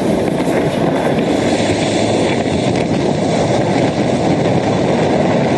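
Loud, steady roar of a large military transport helicopter flying low to land, with its rotor downwash blowing across the microphone.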